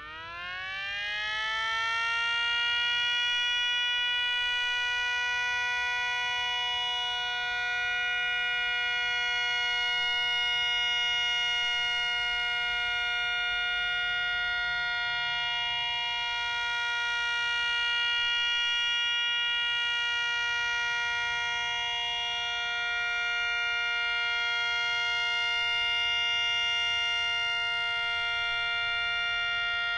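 3D-printed miniature 500DHTT dual-tone siren running up: one small motor spins both the 8-port and 12-port rotors, and the two-tone wail climbs steeply over about two seconds, then holds a steady high chord. The motor is being driven at about 7.5 V, over its 5 V rating.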